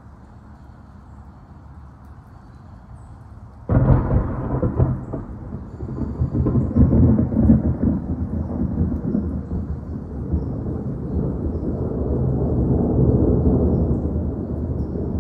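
Thunder from a close lightning strike: a sudden loud boom about four seconds in, then a long rolling rumble that swells again twice and carries on, over the steady hiss of rain. The large boom from a single stroke is what the uploader takes as the sign of a positive lightning strike.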